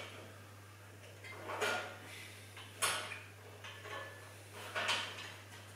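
Metal clanks and rattles of the cable-machine hardware, the steel cable and pulleys, being handled during assembly. Three louder clanks come a second or two apart, with lighter rattling between them over a steady low hum.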